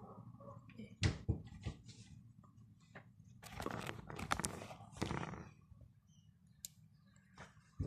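Slime being handled by hand: a series of irregular clicks and pops, with longer crackling squelches around the middle.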